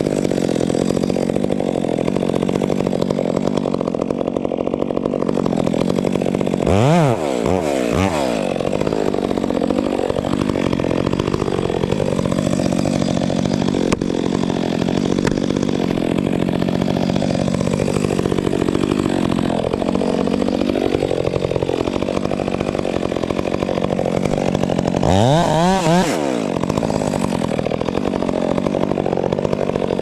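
Chainsaw running hard and cutting wood, its pitch wavering under load. Twice, about 7 and 25 seconds in, it drops briefly and revs back up.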